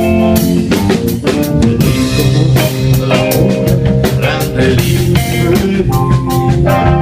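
Live band playing an instrumental passage between sung lines: drum kit with regular strikes under guitar, no vocals.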